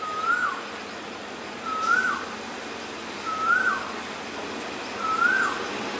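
A bird repeatedly giving a single clear whistled note that rises briefly and then drops, four times at intervals of about a second and a half to two seconds, over a steady background hiss.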